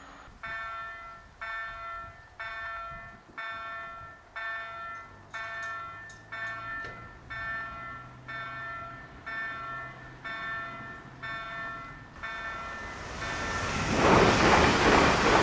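Level crossing warning bell striking about once a second, a dozen strikes, then stopping. A train then rushes through the crossing at speed, its noise swelling into the loudest sound near the end.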